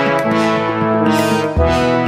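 News-bulletin theme music with brass and a falling bass line, with bright swooshing sweeps. A low hit lands about one and a half seconds in.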